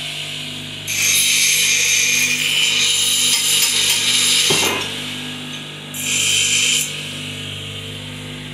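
Bench grinder motor running steadily while small steel angle pieces are pressed against the wheel, grinding the paint off them. There is a long hissing grind about a second in that lasts about four seconds, then a shorter one of under a second around six seconds, with the motor idling between.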